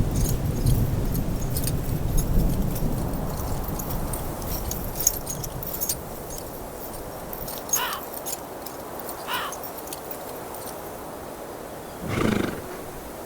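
A horse giving short whinnies and a louder neigh near the end, over a low rumble that fades away during the first half, with scattered faint clicks.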